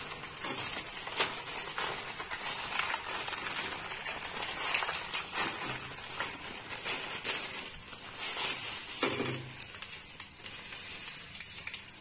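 Thin plastic packet of dry vermicelli crinkling and crackling as it is untied, opened and handled, with one stronger knock about nine seconds in.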